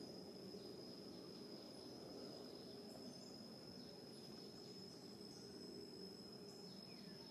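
Faint outdoor ambience: an insect's steady, thin, high-pitched trill, like a cricket's, over a low even hum, with a few faint short chirps.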